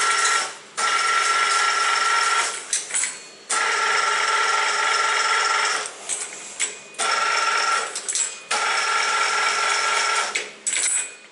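Large C6251 metal lathe's carriage feed running in repeated bursts as its apron lever is worked. A steady mechanical whine with a high tone starts and stops sharply about five times.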